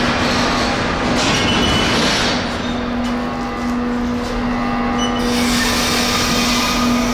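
Covered freight wagons rolling slowly over the rails of a ferry's enclosed train deck during shunting, with wheel-on-rail rumble and clatter. A steady low hum runs beneath it.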